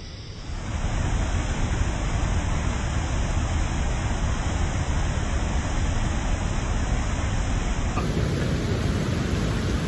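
River water rushing over rapids, a steady loud noise.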